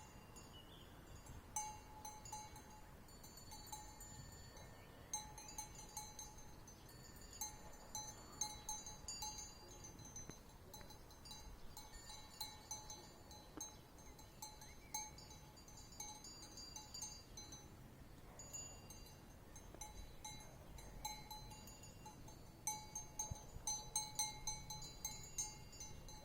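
Bells on sheep clinking and clanking irregularly as the animals move about. The ringing comes in bursts of rapid clinks with quieter gaps between them.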